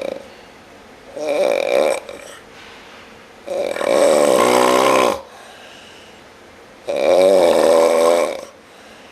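A man snoring loudly in long, drawn-out snores, three full ones with pauses between, each with a wavering, sliding pitch.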